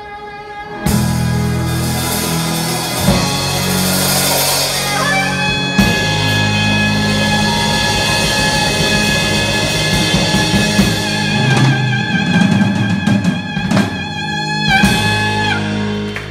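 Live jazz band of soprano saxophone, electric guitar, electric bass, keyboard and drum kit playing a tune's closing climax. The full band comes in loud about a second in, with crashing cymbals. The soprano saxophone holds a long high note with vibrato, and the band ends together just before the end.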